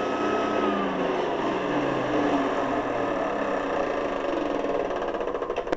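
Hoover Guardsman upright vacuum's motor winding down after being switched off: its whine falls steadily in pitch and turns into a slowing flutter near the end.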